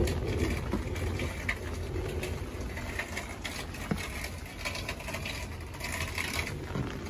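Steady rain falling, with a few scattered drips ticking nearby and a constant low rumble underneath.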